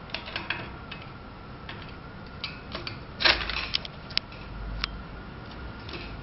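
Light metal clicks and knocks as a T-shaped handlebar stem is seated in the front tube of a folding electric bike. A loud cluster of knocks comes about three seconds in, followed by a few single sharp clicks.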